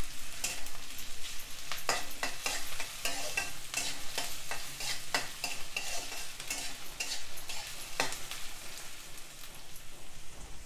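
Metal spatula scraping and clicking against a kadai while onions and green chillies are stirred, with frying sizzle underneath. The scraping stops near the end, leaving the sizzle.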